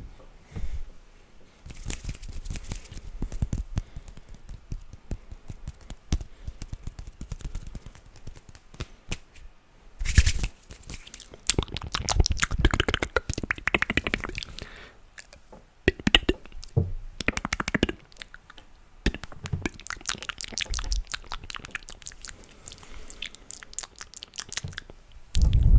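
Close-miked ASMR mouth and hand sounds: a dense run of clicks and crackles coming in bursts, with a loud burst near the end.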